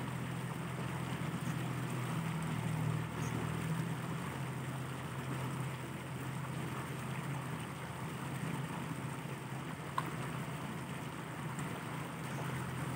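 Steady outdoor background noise with a low, even hum underneath, and a single faint click about ten seconds in.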